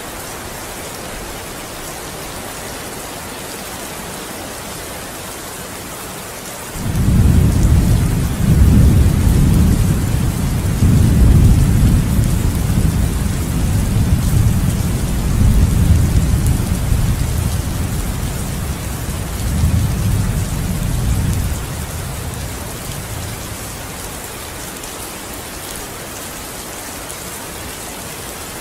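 Steady rain, with a long roll of thunder that breaks in suddenly about a quarter of the way through, rumbles deep in several swells, and dies away after about fifteen seconds while the rain goes on.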